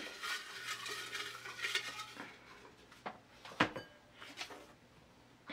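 Folded paper slips being stirred by hand in a small glass fishbowl, a light rustling with small clinks against the glass, then a single slip drawn out.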